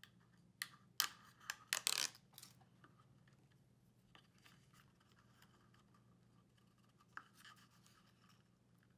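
Hands pressing a wireless charger unit into a small wooden case, taped down with double-sided tape: scratchy rubbing and sharp clicks of plastic against wood. The noises bunch together in the first couple of seconds and come back briefly near the end.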